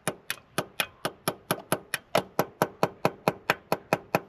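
Small hammer tapping steadily on a punch set against a broken bolt seized in an engine, sharp metal-on-metal taps about four or five a second. The tapping is meant to shock the bolt loose and set a dimple for turning it out.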